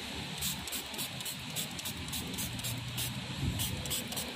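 Background music with a quick, even ticking beat.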